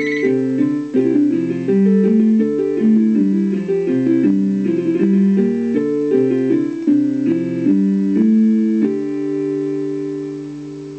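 Background music: a plucked guitar melody with notes changing several times a second, settling about nine seconds in on a held chord that fades out.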